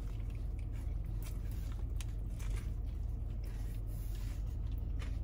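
A man bites into and chews a double bacon burger topped with crunchy tortilla strips: faint chewing with light crunches scattered through, over a steady low hum.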